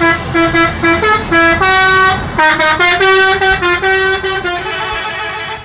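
A tour bus's multi-tone musical horn, the Indonesian 'telolet' kind, playing a tune of short held notes that step up and down in pitch.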